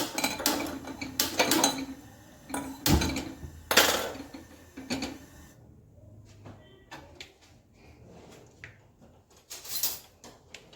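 Metal kitchen utensils clattering and clinking as a kadhai and spoons are handled on the stove, with the louder knocks around three to four seconds in and fainter scattered clinks after.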